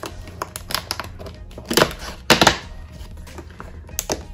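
Cardboard and paper packaging being handled as a calendar compartment is opened: scattered light clicks and taps, with two louder rustling scrapes about two seconds in.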